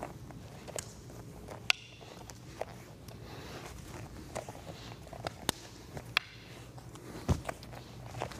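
Irregular sharp clacks, roughly one or two a second, as a training knife and a wooden fighting stick strike and parry each other, over soft shuffling of bare feet on a mat. A duller thump comes near the end.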